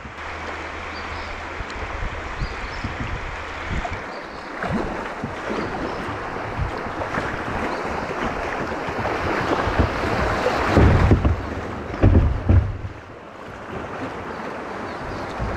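Fast-moving floodwater rushing and splashing around a kayak, with paddle splashes. Heavy wind buffeting on the camera microphone comes in a few loud gusts about two thirds of the way through.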